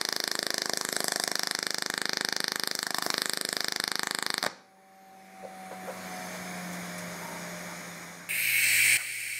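Welding arc buzzing and hissing steadily with a fast, even pulsing, cutting off abruptly about four and a half seconds in. A quieter low hum follows, then a loud hiss starts near the end.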